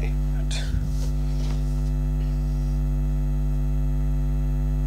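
Loud, steady electrical mains hum picked up by the recording, with a few brief rustles about half a second to a second and a half in.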